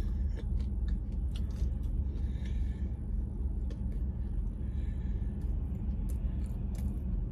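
Steady low rumble inside a parked car's cabin, with faint scattered clicks and soft chewing sounds.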